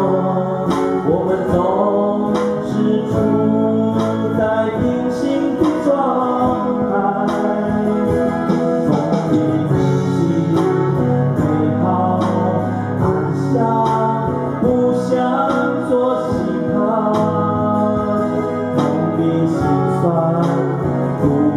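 Male voices singing a song live through microphones, accompanied by two amplified frame-bodied silent guitars strummed and picked.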